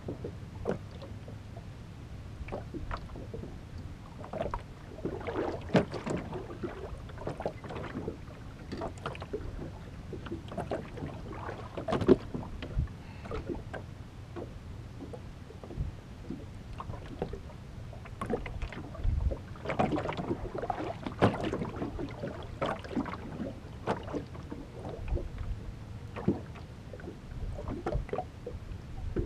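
Small waves lapping and slapping irregularly against the aluminum hull of a fishing boat, over a steady low rumble.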